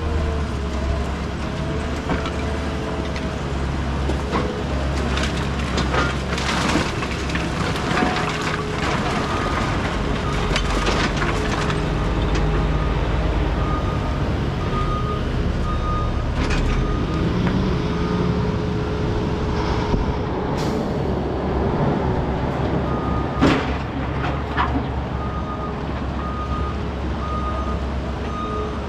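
Heavy diesel equipment running steadily, with scattered clanks and knocks of broken concrete. A backup alarm beeps for a few seconds around the middle and again near the end.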